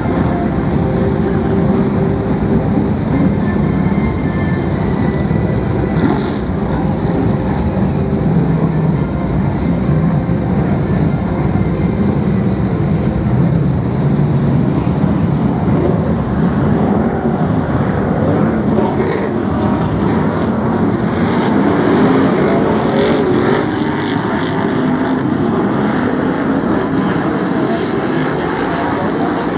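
A pack of BriSCA F1 stock cars' V8 engines running continuously as the cars lap the track, the engine note rising and falling in pitch.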